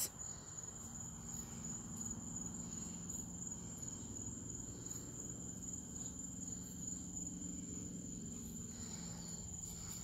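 Faint, steady high-pitched trill of night insects, running unbroken.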